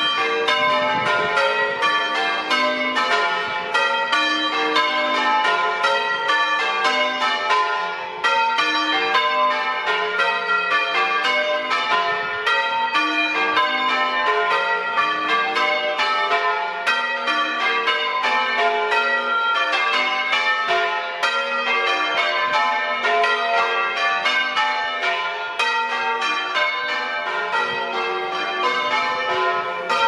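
Church bells rung in changes: an unbroken stream of bell strokes following one another in a steady rhythm.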